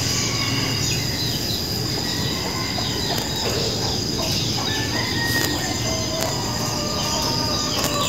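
Outdoor ambience: a steady background din with a constant high-pitched whine, and short scattered bird calls.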